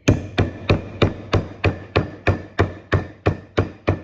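Hammer tapping a kingpin bushing into a steering knuckle, steady blows about three a second with a metallic ring after each.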